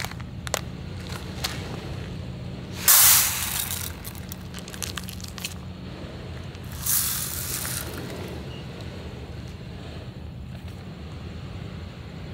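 Two short bursts of hissing about four seconds apart, each starting suddenly and fading, with a few light clicks before them. This fits steam puffing out of a self-heating meal box as its heating pack reacts.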